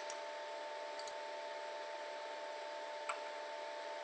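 Computer mouse clicking: a quick double-click at the start and another about a second in, then a single click about three seconds in, over a steady faint hum and hiss.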